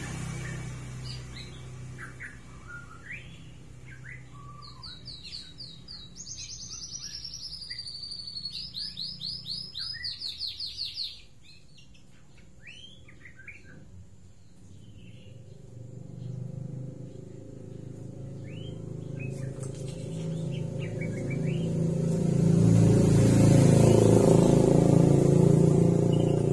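A white-rumped shama sings with short high calls, then a fast run of rapidly repeated sweeping high notes that breaks off abruptly near the middle, followed by scattered short calls. Toward the end a low rumble swells and becomes the loudest sound.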